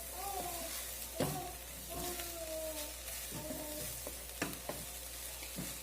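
Cooked chicken with onion, garlic and spices sizzling in a frying pan while being stirred, the spoon knocking and scraping against the pan several times.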